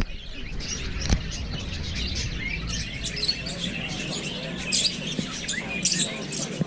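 Small birds chirping and twittering in short scattered calls over a low steady background hum, with a single knock about a second in.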